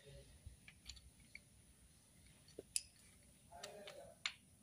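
Sparse metallic clicks and taps as hands and a wrench work on the timing chain and cam sprockets of a Toyota 2TR engine, the two sharpest clicks about three seconds in and just before the end.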